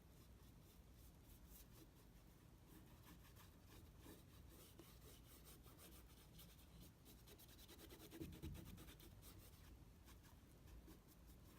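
Faint, quick scratchy strokes of a paintbrush working wet paint over layered tissue paper, with one soft bump about eight seconds in.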